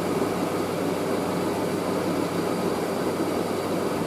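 Hoover SIX AAA160 washing machine spinning a load of heavy blankets: a steady motor hum and drum whirr.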